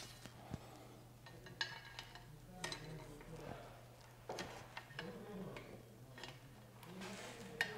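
Faint, scattered metallic clicks and clinks of an Allen key working a nut-and-washer bolt as a front rack is fastened to an e-bike's head tube.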